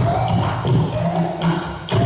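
Sundanese dogdog drums and percussion ensemble playing a driving rhythm, with a short pitched phrase recurring about every second over the beat.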